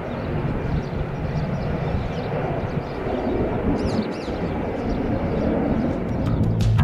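Airbus A320-214's CFM56-5B jet engines at take-off power as the airliner climbs away just after lift-off, a steady distant rumble. Music comes in near the end.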